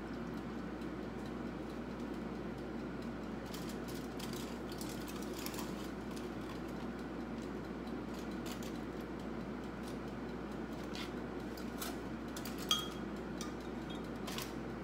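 Light kitchen handling sounds: faint clicks and crinkles as marinade is poured from a glass measuring cup over fish in a tinfoil bowl, over a steady low hum. About two-thirds of the way through comes one sharp, ringing glass clink.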